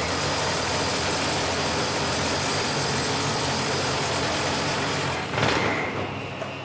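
SDS-Max rotary hammers, a Milwaukee M18 FHM and a corded competitor, hammer-drilling into concrete blocks with a steady, dense racket. About five and a half seconds in there is a brief clatter and the noise drops as a brake stops the drill bits and the tools kick back.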